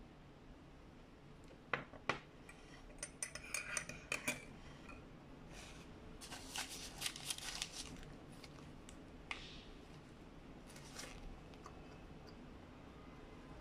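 A ceramic mug set down on a table with two sharp knocks about two seconds in, then a burger's paper wrapper crinkling as it is peeled back, in crackly bursts that die out after about eight seconds, with a couple of softer rustles later.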